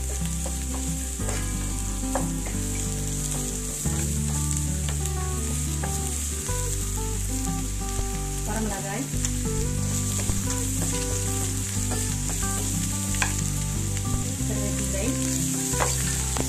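Chopped onions and coriander seeds sizzling in oil in a nonstick kadai, stirred with a wooden spatula that scrapes and clicks against the pan now and then.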